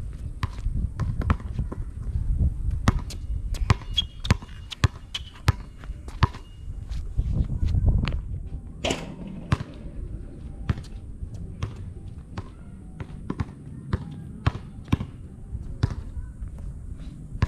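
Basketball dribbled on a concrete court, bouncing two to three times a second, with one louder hit that rings on briefly about nine seconds in.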